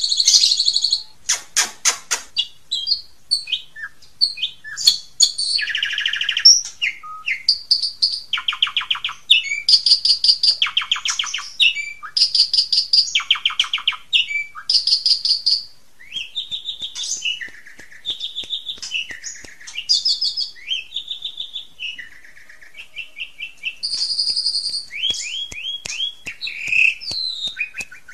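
Songbird song used as a training recording: a continuous run of varied phrases about a second long. Many phrases are fast repeated notes ('tembakan') and rough, rattling trills, separated by short gaps.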